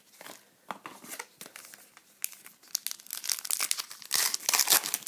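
Crinkling and tearing of a trading-card pack wrapper being torn open by hand, scattered crackles at first, then denser and louder in the second half.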